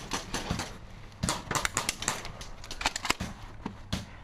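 Irregular sharp snaps and clicks of airsoft gunfire, coming singly and in quick clusters of several.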